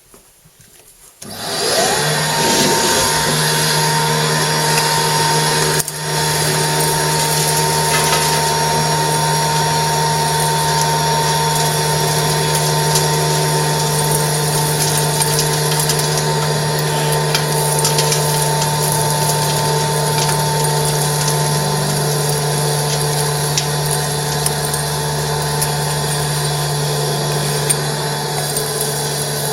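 Ash vacuum motor switching on about a second in and running loudly and steadily with a steady hum and whine, sucking up fireplace ash, with scattered light ticks of debris; the sound dips briefly about six seconds in.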